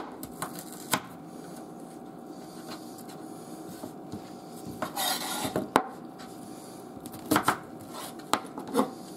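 Chef's knife slicing an onion on a plastic cutting board: scattered knocks of the blade hitting the board, a longer rasping stroke about five seconds in, and quicker knocks near the end. The cook calls the knife very dull.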